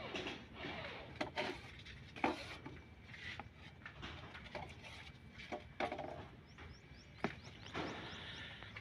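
Scattered light knocks, taps and scrapes of a cement-filled mould and trowel being handled on a concrete slab.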